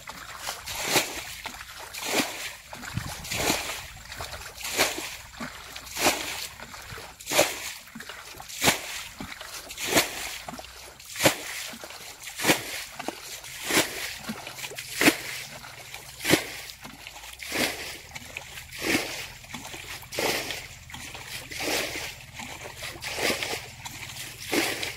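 Water being bailed out of a shallow muddy ditch with a plastic container: a splash about every second and a quarter in a steady rhythm, each one a scoop of water thrown and landing.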